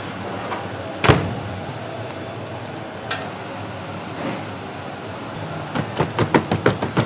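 A cleaver chopping roast meat on a wooden chopping block: one heavy chop about a second in, a couple of lighter knocks, then near the end a quick steady run of chops, about four or five a second.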